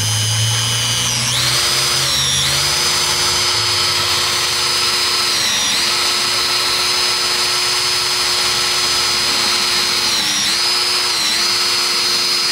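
Cordless drill turning a 3-inch hole saw in reverse through a plastic bucket lid: a steady, loud motor whine whose pitch sags briefly several times as the saw bites and loads up.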